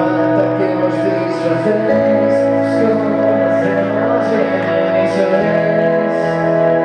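Live rock band playing: electric guitars and keyboard holding chords that change about two seconds in and again about five and a half seconds in, over drums with regular cymbal hits.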